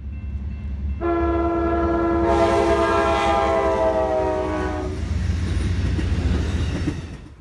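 Amtrak GE P42DC diesel locomotive sounding its multi-note horn in one long blast of about four seconds, the pitch falling slightly, over the low rumble of the engine. From about two seconds in the rush and clatter of the passing train builds, then drops away near the end.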